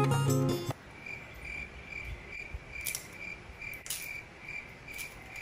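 A cricket chirping steadily, about three chirps a second. A few faint clicks of a knife blade on a red onion being peeled sound over it.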